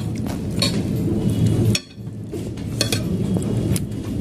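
A metal fork clinking against a ceramic plate of rice a few times, in sharp separate clicks, over a steady low background hum.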